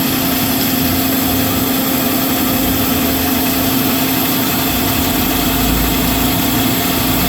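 Marvel MV525 vertical mitering bandsaw running with its hydraulic blade drive engaged: a loud, steady mechanical drone with a constant hum, the hydraulic drive making these saws noisy by nature.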